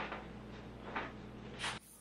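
Short rustling swishes of cord and packed fabric as camping gear is tied down onto an e-bike's rear rack, three brief bursts over a low steady hum that cuts off near the end.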